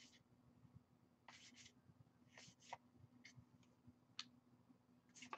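Faint short swishes of Magic: The Gathering cards being slid one behind another in the hands, about seven spread through, over a faint steady hum.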